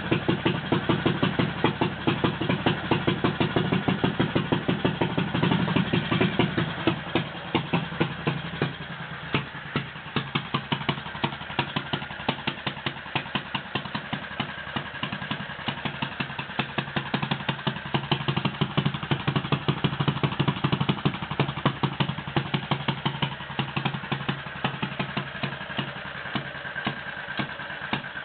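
Simson AWO 425T's single-cylinder four-stroke engine running at low speed with an even, slow beat, louder and heavier for the first six seconds or so, then settling to a steady idle.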